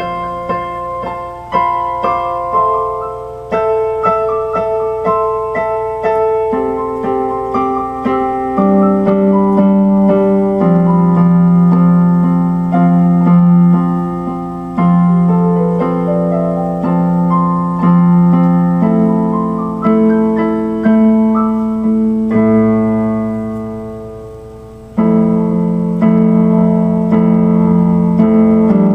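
Electronic keyboard played with a piano voice: a slow melody of held notes over low bass notes. About two-thirds of the way through, one chord is left to fade out before the playing resumes.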